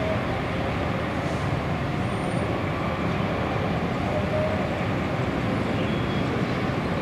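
Boeing 767's jet engines on final approach, a steady rumble that holds an even level throughout.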